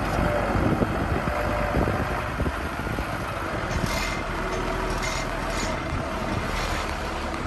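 Diesel engine of heavy earthmoving equipment running steadily, with a few short, sharper high-pitched sounds about halfway through.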